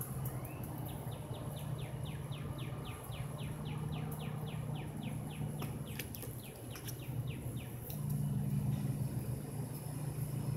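A bird sings a long trill of quick, evenly spaced falling notes, about four or five a second, from about a second in until near the end. Under it runs a steady low machine hum, which grows louder about eight seconds in.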